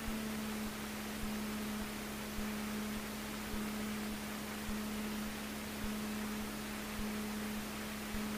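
Steady low hum with hiss on the cockpit audio feed of a Cessna 150 taxiing, one unchanging tone with a fainter overtone above it.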